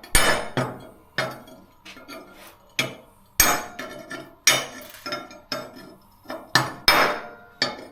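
A hammer striking a cold chisel against a plasma-cut steel plate, a dozen or so sharp, irregular metallic blows with short ringing tails: it is chipping the plasma-cutting dross off the plate's underside.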